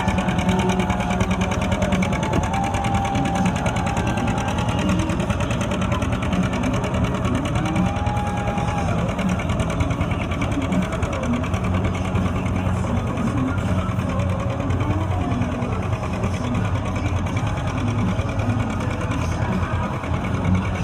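John Deere 730's two-cylinder engine running steadily under heavy load, a fast, even popping exhaust beat, as the tractor drags a weighted pulling sled.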